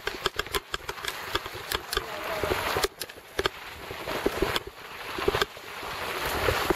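Mountain bike rolling downhill on a dirt forest trail: tyre and wind noise on the microphone, with frequent clicks and rattles as the bike jolts over bumps, growing louder near the end.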